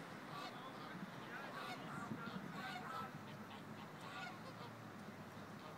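A flock of white domestic geese honking, many short calls overlapping, busiest in the first half.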